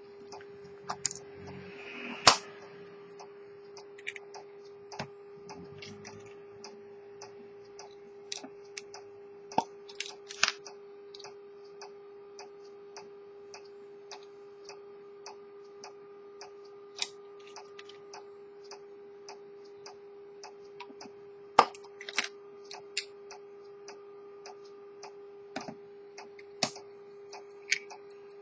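Early-1900s Edmond Mathey-Tissot minute-repeater pocket watch ticking evenly, its case open. A few louder clicks and knocks come from the watch being handled, over a steady hum.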